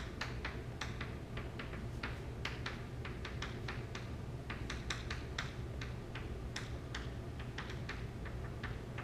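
Chalk writing on a blackboard: quick, irregular taps and short scratches, several a second, as a structure and words are written out, over a steady low hum.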